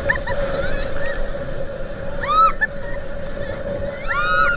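High-pitched shrieks, a few short squeals near the start and two longer ones about two seconds in and near the end, over the steady drone of a towing motorboat's engine and water noise.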